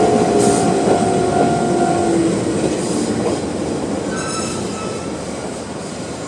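Toyama Chiho Railway 10030-series electric train running over the rails past the crossing and drawing away. A steady tone slides slightly down for the first two seconds, brief high wheel squeals come about four seconds in, and the whole sound slowly fades.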